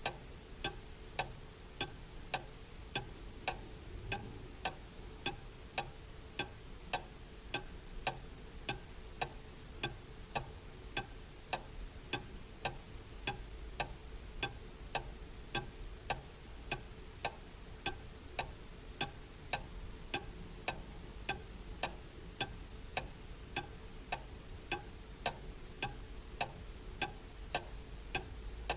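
Cuckoo clock ticking steadily, a sharp even tick a little under twice a second, over a faint low hum.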